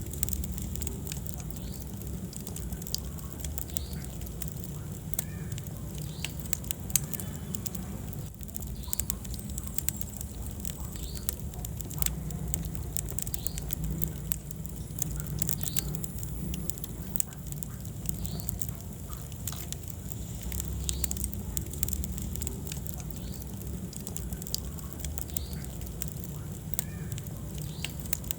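Wood fire crackling in a fireplace: many small sharp pops and snaps over a steady low rumble of the flames, with one louder pop about seven seconds in.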